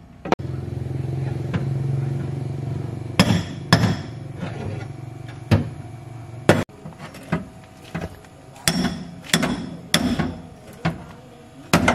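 Repeated hammer blows on a mini truck's steering wheel, knocking it loose from the steering column, about one or two a second in the second half. Before that a steady low motor hum runs with a few single knocks and stops suddenly about halfway through.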